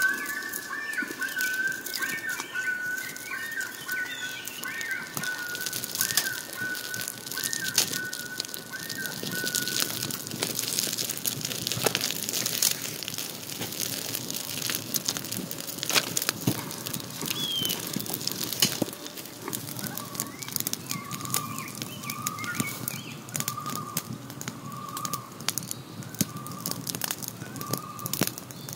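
Small campfire of kindling and split wood crackling, with sharp pops all through. A bird calls behind it: a run of high notes over the first ten seconds, then a row of evenly spaced lower notes, roughly one a second, near the end.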